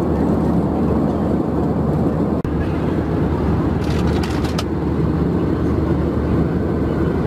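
Steady, loud cabin noise of an Airbus A320 in cruise, with a deep, even rush of engine and airflow. There is a momentary dropout about two and a half seconds in, and a brief cluster of faint clicks about four seconds in.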